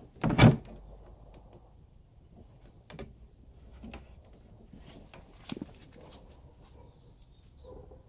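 Wooden double doors of a 1957 Saba Schauinsland TV console cabinet being pulled open: one loud clunk about half a second in, then a few light knocks.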